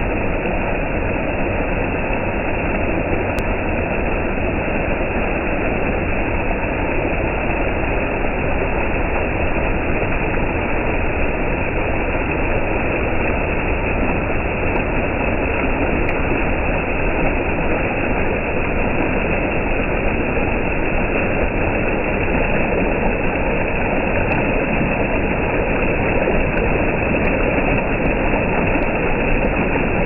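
Water spilling over a low weir and churning white below it: a steady rushing that does not change.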